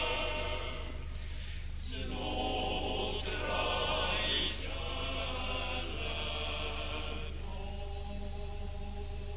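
Background music: choral singing in long held chords that change every second or two.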